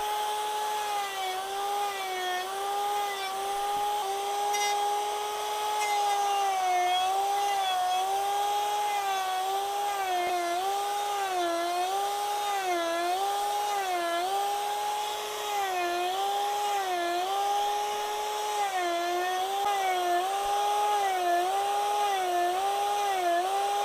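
Angle grinder fitted with a small toothed wood-carving disc, its motor whining steadily as it cuts into wood. The pitch dips again and again each time the disc bites and loads the motor, then springs back up.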